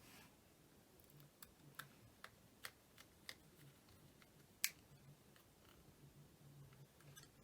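Faint, scattered small clicks and taps from handling a plastic flip phone and small tools during reassembly, about a dozen in all, one sharper click a little before five seconds in.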